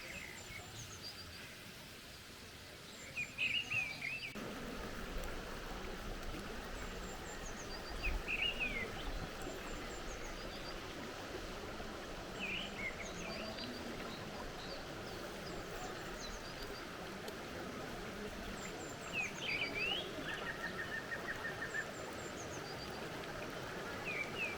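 Songbirds calling: a short rising-and-falling call repeated every four to five seconds, with fainter high chirps and a brief rapid trill near the end. Behind them is a steady rush of flowing water that grows a little louder about four seconds in.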